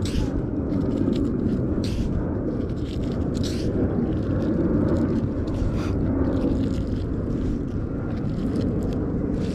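Steady wind rumble on the microphone. A few short rustles come through it as the cast net's rope is pulled in hand over hand.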